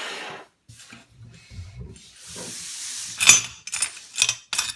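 Handling noise: rubbing and scraping, then a quick run of sharp metallic clicks and clatter starting about three seconds in.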